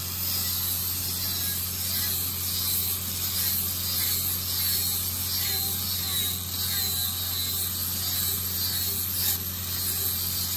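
A 4-inch angle grinder with a grinding disc running steadily against the end of a steel pipe, grinding a 37.5-degree bevel for a butt weld. A constant motor hum sits under the steady hiss of the disc on the metal.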